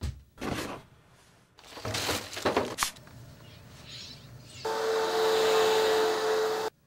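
A Panasonic upright vacuum cleaner running on carpet with a steady whine for about two seconds near the end, then stopping abruptly. Before it come short rustles and knocks of clothes and newspapers being gathered up.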